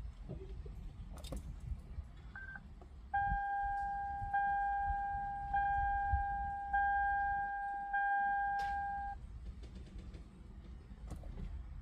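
2009 Toyota Camry Hybrid dashboard chime: a short beep, then five repeated chime tones about a second apart, each fading a little before the next. A few sharp clicks from the ignition key and dash buttons come before and after.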